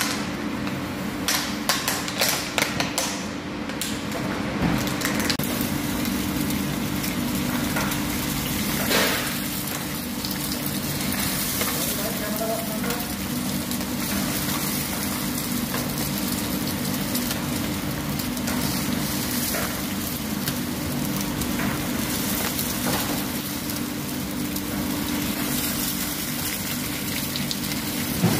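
Eggs sizzling on a large flat-top griddle while more eggs are cracked onto it one after another, over a steady low hum. A run of clicks and taps comes in the first few seconds, and a single sharp knock about nine seconds in.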